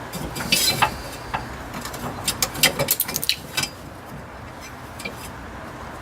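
Plastic retainer clips being fitted onto a fuel filter's fuel line connections: a run of sharp clicks and small plastic clatters during the first few seconds, then it goes quiet.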